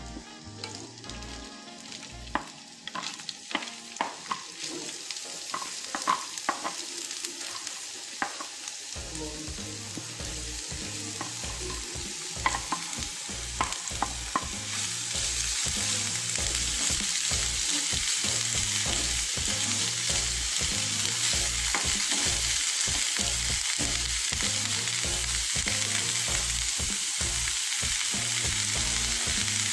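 Chopped vegetables stir-frying in hot oil in a pan, turned with a wooden spoon. Scattered clacks and scrapes as the pieces go in and are stirred, then a steady sizzle that grows louder from about halfway.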